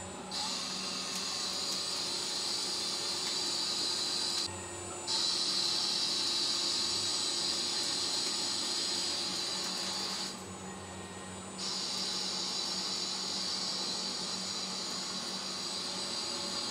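Spindle of a homemade CNC mill spinning one-inch aluminum bar stock as a lathe while gang-mounted turning tools machine a test part, with a steady high whine and hiss. Twice the high sound drops away briefly to a quieter low hum, about a third and two thirds of the way through.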